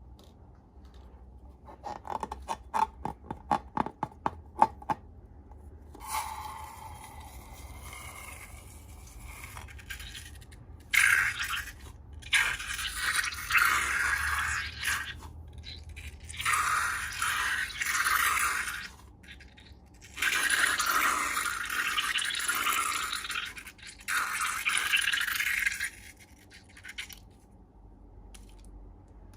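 Slime being worked and scraped: a quick run of about a dozen clicks, then a series of loud scraping bursts, each lasting one to three seconds.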